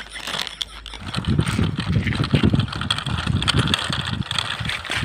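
Small plastic toy trucks rolling over rough cement, their wheels and bodies rattling in an uneven rumble that starts about a second in.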